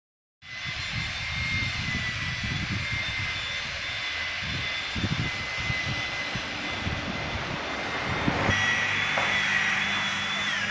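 Construction-site machinery: a steady high-pitched mechanical whine that dips briefly in pitch near the end, over wind buffeting the microphone. About two-thirds of the way through, the low, steady idle of a truck engine joins in as the truck-mounted aerial lift comes into view.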